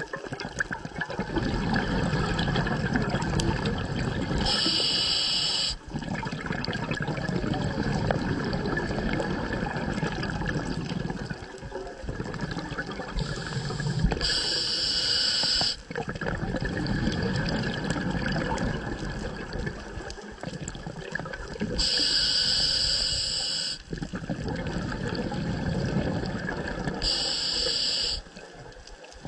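A scuba diver breathing through a regulator underwater: four hissing inhalations, each a second or two long and about six to nine seconds apart, with the rushing, bubbling noise of exhaled air between them.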